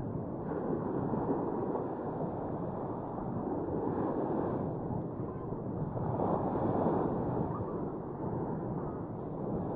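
Steady rushing outdoor noise with no speech, swelling slightly about six seconds in.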